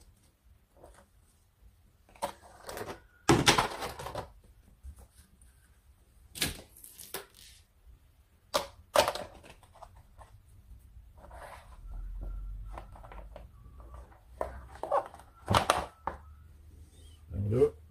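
Handling knocks and clatter from a clear plastic storage-box lid and foam elbow pads, the loudest clatter about three seconds in, and a heavy kettlebell set down on the lid to clamp a freshly glued pad. A short rising sound comes near the end.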